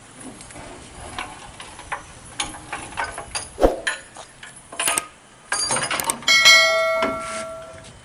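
Steel loading ramps of a lowboy trailer clanking and rattling as they are lifted by hand, with a loud metal clang a little past six seconds in that rings like a bell and fades over about a second and a half.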